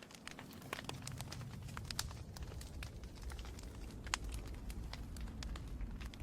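Wood fire crackling, with irregular sharp pops and snaps over a low rumble that comes up at the start and then holds steady.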